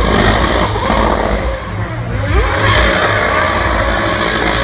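2011 Williams Formula 1 car's V8 engine revving hard and accelerating, its pitch rising a little past halfway.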